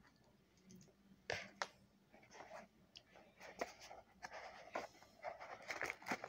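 Faint taps, clicks and rustling of hands handling a small cardboard accessory box, the rustling getting busier near the end.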